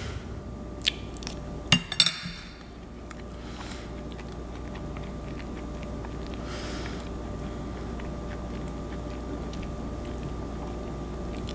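A few short clinks of a metal fork against a plate in the first two seconds, then quiet room tone with a steady low hum.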